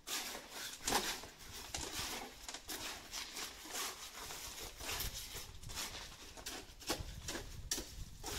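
Hand trowels scraping and turning a wet concrete mix on a steel sheet: a busy run of irregular scrapes and taps, two trowels working at once.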